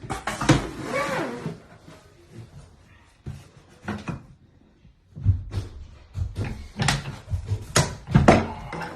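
A vinyl plank cutter being worked. After a quiet stretch come a series of sharp clunks and knocks from about five seconds in, as the plank is set in the cutter and the lever-driven blade is pressed down to cut it.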